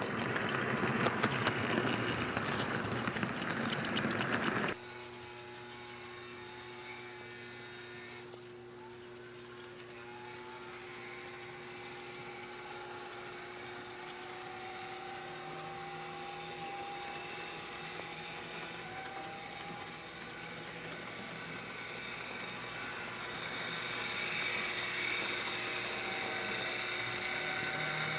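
HO-scale model train running on the layout: the Walthers Fairbanks-Morse switcher's small electric motor whining and the cars' metal wheels clicking over the track, loud and close at first. About five seconds in it drops abruptly to a quieter, steady running hum with a slowly rising whine.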